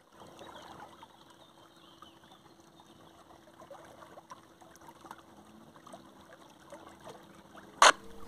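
Water trickling and splashing past an inflatable boat under way, over the faint steady hum of a Minn Kota 40 lb electric trolling motor running; a single sharp knock near the end.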